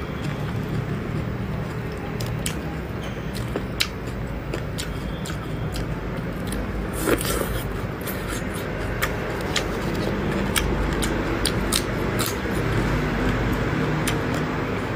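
Close-up eating sounds of raw fish slices being chewed: scattered sharp mouth clicks and smacks, busiest about seven seconds in, over a steady low rumble.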